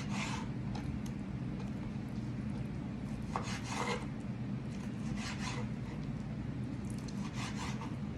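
A knife sawing through raw chicken breast on a cutting board, in a few short scraping strokes a second or two apart, over a steady low hum.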